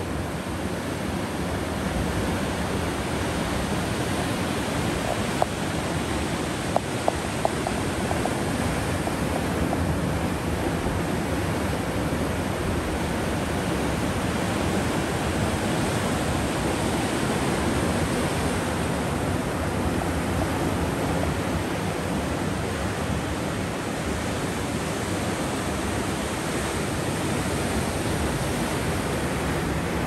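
Rough sea surf breaking and washing over rocks: a steady, unbroken rush of water noise. A few short sharp clicks come about a fifth of the way in.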